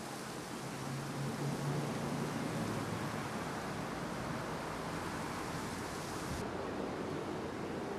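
Wind blowing steadily outdoors, a rushing noise with a faint low hum in the first few seconds.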